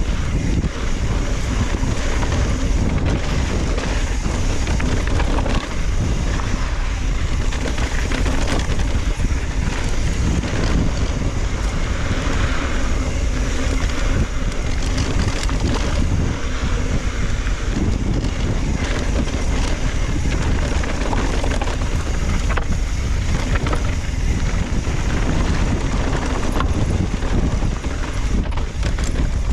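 Heavy wind buffeting the microphone on a mountain bike ride, a steady, dense rush with a deep rumble. Frequent short knocks and rattles run through it as the bike rolls over rough, rocky trail.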